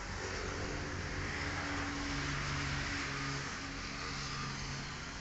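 A motor vehicle's engine running over steady background noise, its low hum growing stronger for about a second in the middle.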